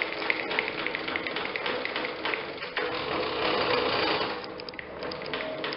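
DeWalt DW745 table saw's blade height-adjustment mechanism being cranked, its gears and rod clicking rapidly, with a rougher, louder grinding stretch about three seconds in. The mechanism is still a little stuck.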